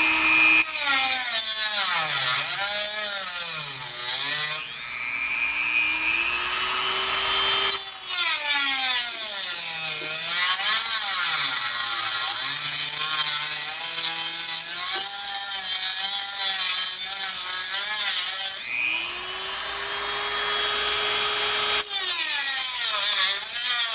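High-speed rotary tool with a cutoff wheel grinding into the casing of a tubular filter capacitor. Its whine sags and wavers under load. Twice, about five seconds in and again near the end, the wheel comes off the work and the motor climbs back up to speed before cutting again.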